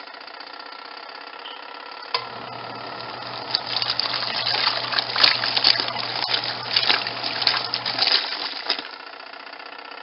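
Auauna twin-tub portable washing machine's wash tub agitating a load: the motor starts humming about two seconds in and stops about eight seconds in, with water sloshing and many small clinks and rattles from the clothes against the plastic tub.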